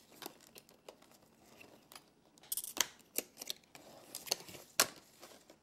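Clear plastic clamshell packaging being worked open by hand: its plastic fasteners snap loose with scattered sharp clicks and crinkles, most of them in the second half.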